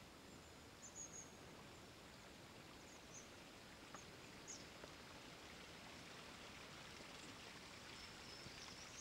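Near silence: faint outdoor background hiss with a few faint, short high chirps.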